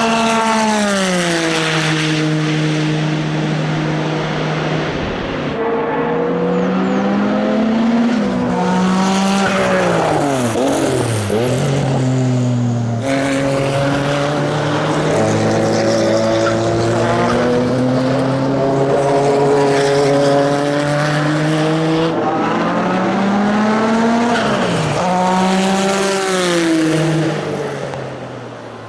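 Porsche 962C racing car's turbocharged flat-six running hard: its pitch falls as the car slows, holds, then climbs again as it accelerates, over and over. The sound breaks off abruptly a few times.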